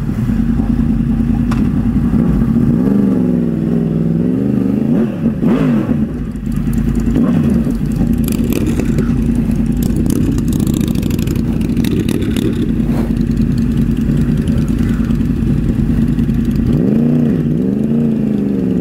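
Yamaha R1 sport bike's inline-four engine idling steadily, with motorcycle revs rising and falling in pitch about three to five seconds in and again near the end.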